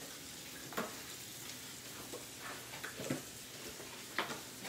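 Hanger steak frying in butter in a cast-iron skillet: a steady soft sizzle. A few light clicks and knocks come through it.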